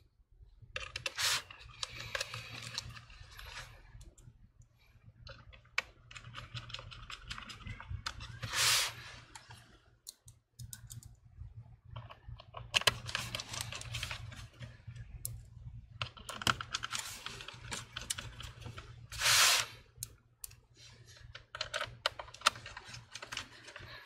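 Small screwdriver working the screws of an HP 15 laptop's bottom cover: clusters of light clicks with a few longer scraping rasps.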